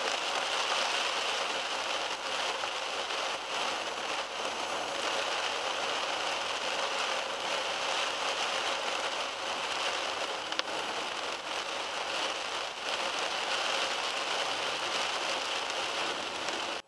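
Heavy rain falling steadily on a car's roof and windscreen, heard from inside the car as a dense patter, with a sharp click about ten and a half seconds in.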